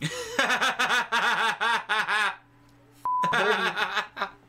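A man laughing in two bouts of rapid, repeated ha-ha pulses. A brief high beep comes between them, about three seconds in.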